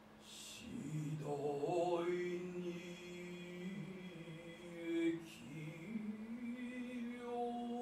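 A male voice chanting long, drawn-out notes in biwa narrative style (biwa-gatari), stepping up to a higher held note about two thirds of the way through.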